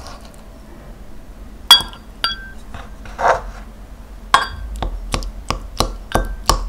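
Wooden spoon clinking against a glass mug as chunks of mashed kiwi are spooned and stirred in it. Two ringing clinks and a short scrape come first, then a quick run of about seven taps in the last two seconds.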